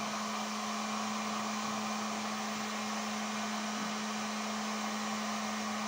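Electric heat gun running steadily: an even rush of blown air with a constant low motor hum.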